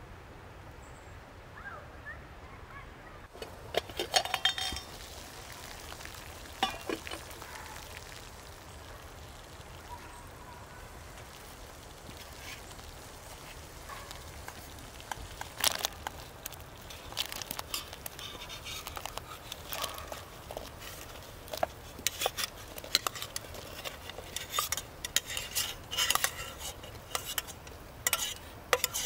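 Water boiling in a camp pot over a fire, with metal clinks from pots and, in the second half, a quickening run of clicks and splashes as cut apple pieces are tipped from a steel pot into the boiling water.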